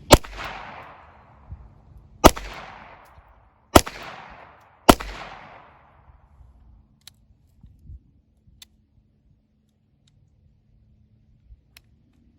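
Four shots from a Ruger Mark IV .22 Long Rifle pistol at uneven intervals over about five seconds, each followed by a short fading echo. A few faint clicks come later.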